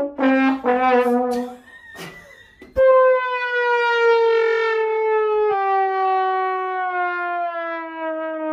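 Trombone playing a few short notes, then, about three seconds in, one long note that slides slowly downward in pitch.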